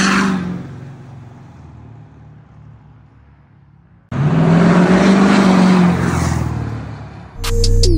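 Ford 6.7 L Power Stroke V8 turbodiesel in an F-350 dually driving past at speed, its engine note dropping in pitch and fading as it goes away. About four seconds in, a second loud pass starts suddenly and fades the same way. Music begins near the end.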